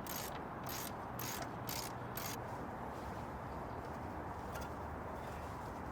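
Ratchet wrench clicking in five quick back-strokes, about two a second, stopping after a couple of seconds.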